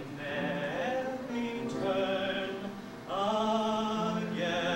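A man singing into a microphone, holding long notes with vibrato; a new phrase begins about three seconds in.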